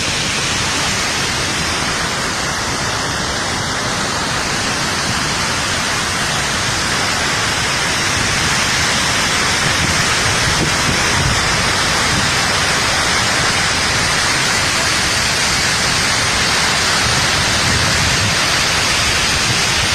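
Water rushing down a large waterfall: a steady, loud, even rush that grows slightly louder about eight seconds in.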